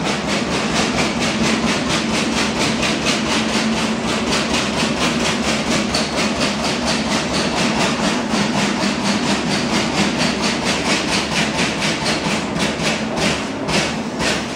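Trumpf TruMatic 2020R CNC turret punch at work, its ram striking in a rapid, even series of punch strokes, several a second, over a steady machine hum. Near the end the strokes come further apart.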